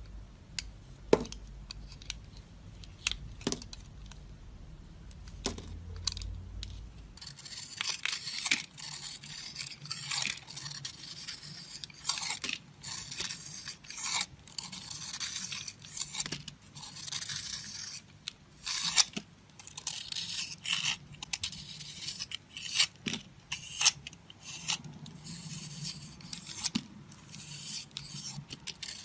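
A knife cutting and scraping into dry soap. A few separate sharp clicks at first, then from about seven seconds in dense runs of crisp scraping, crunching strokes.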